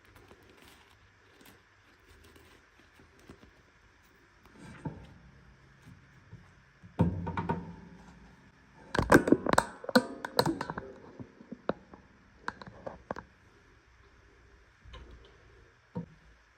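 Plastic toy pieces and packaging being handled close to the microphone: a thump about seven seconds in, then a quick run of sharp clicks and knocks, with scattered single clicks afterwards.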